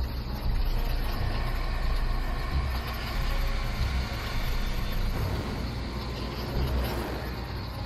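A steady low rumbling drone with an even hiss above it.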